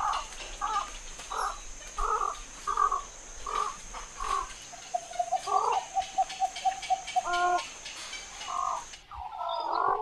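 Black-crowned night herons calling: short single calls repeated about every 0.7 s, then a fast, even run of pulsed notes lasting a couple of seconds from about five seconds in. A faint high hiss underneath stops about nine seconds in, and a jumble of calls follows near the end.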